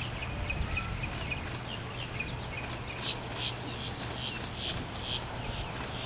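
Marsh ambience: scattered short, high chirps and ticks, irregular, over a low steady hum.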